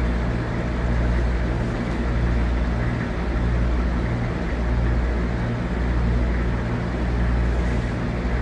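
Vehicle engine idling: a steady low hum that swells and fades about once a second.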